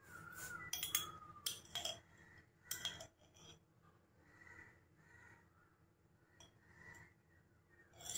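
Dishes and kitchen utensils clinking and knocking: a few sharp clinks in the first three seconds, then only faint sounds.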